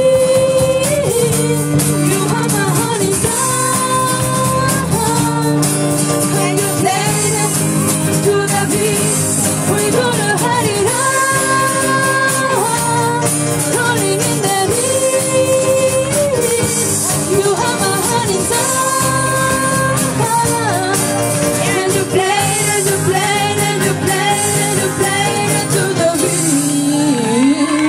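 Live band performing a pop song: a young woman singing lead with held, bending notes over keyboard chords, bass guitar and acoustic guitar. Near the end a sung note slides down as the song closes.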